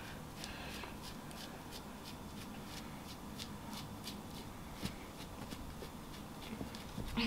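Tint brush working bleach paste through short hair: faint, short brushing strokes, a few a second.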